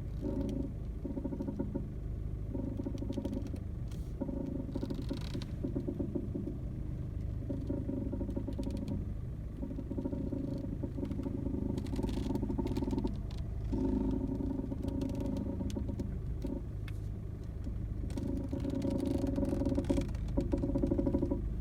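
Repeated creaking and rubbing from the steering of a VW Golf Mk7 1.6 TDI, coming and going in stretches of a second or two as the wheel is worked, with a few sharp knocks, over a steady low rumble. The uploader takes it for a common Mk7 steering fault.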